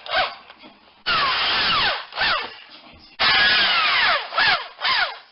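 Power drill driving a long drywall screw through a corner bead into the wall: two bursts of motor whine about a second long, the pitch sweeping up and down as the trigger is worked and the screw bites, with several short trigger blips in between.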